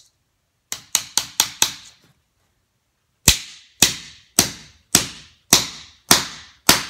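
Hammer driving a concrete nail through a metal carpet-to-vinyl gripper transition strip into a concrete subfloor: about five quick light taps to start the nail about a second in, then, after a pause, seven hard blows about two a second.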